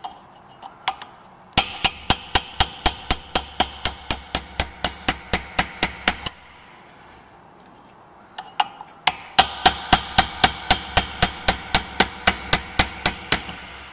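Hammer tapping a chisel along a sweated-on brass shaft sleeve on a motor shaft, in two quick runs of about five ringing taps a second with a pause of about two seconds between them. The chisel is scoring lines down the sleeve to expand it so it will come off the shaft.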